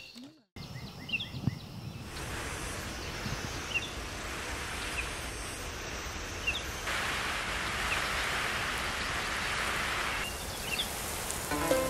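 Water spraying from a garden hose nozzle onto vegetable plants, a steady rain-like hiss that grows louder from about seven to ten seconds in. Short high chirps sound now and then over it.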